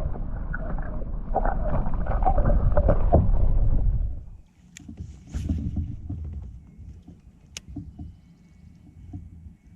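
Water splashing and sloshing at the side of a kayak as a bass is released, stopping suddenly about four seconds in, followed by a few light knocks and clicks on the kayak.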